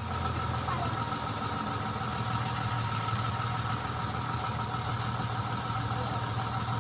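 An engine running steadily at idle, an even low hum.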